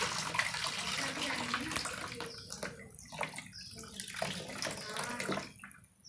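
Cold water poured from two plastic bottles splashes over a capped plastic bottle of hot water and into a metal plate, cooling the bottle so that it will be crushed. It is a steady stream for about two seconds, then breaks into intermittent splashes that trail off near the end.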